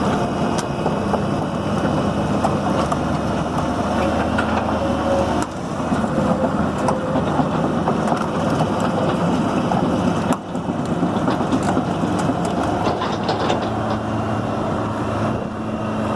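Caterpillar 320B excavator's diesel engine running steadily, with a few faint clicks over the drone.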